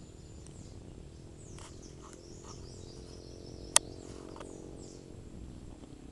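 Forest ambience: repeated thin, high bird calls with quick down-slurred notes, over a faint steady low hum, with one sharp click a little after halfway.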